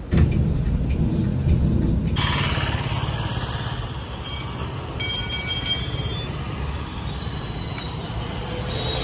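Low rumble of the bus moving in traffic for about two seconds, then a cut to the VRL Volvo 9600 sleeper coach pulling away close by: its engine running and tyres on the road, with some high squealing tones about halfway through.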